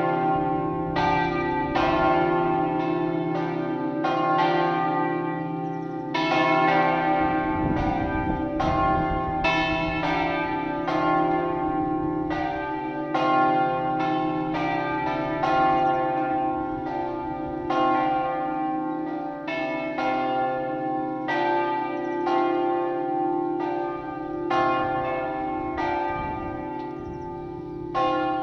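Church bells swinging in full in an open belfry, ringing a festive noon peal a doppio. The clapper strokes fall about once a second, each ringing on over a steady low hum.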